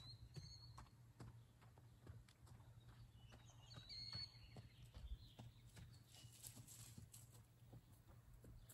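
Faint, distant hoofbeats of a ridden horse moving at a steady gait, a light run of soft thuds.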